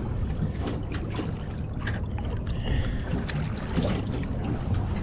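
Water sloshing and splashing against the side of a boat where a bluefin tuna is held in the water by hand to revive it before release, over a steady low rumble.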